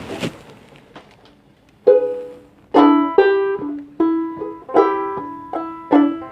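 Banjolele strumming the opening chords of a song: after a short burst of noise at the start, chords begin about two seconds in. They come roughly one or two a second, each ringing out and fading.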